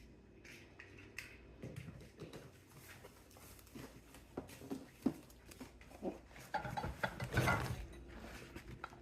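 Cardboard box being opened by hand: scattered rustling, tearing and knocks of cardboard and packing, getting busier and louder about six to eight seconds in.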